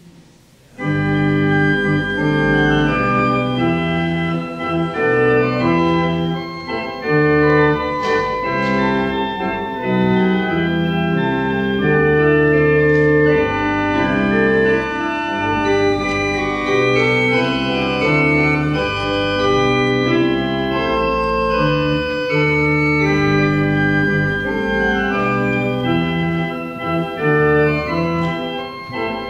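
Organ playing a prelude of held chords that change every second or so, starting about a second in.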